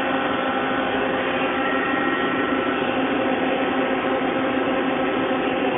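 Machine-shop machinery running steadily: a constant mechanical hum with several steady tones over an even noise, with no starts, stops or strikes.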